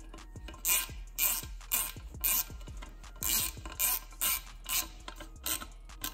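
Small hand ratchet with a Torx bit tightening the bolts on a blow-off valve flange: about ten short bursts of ratchet clicking, one for each back-swing of the handle.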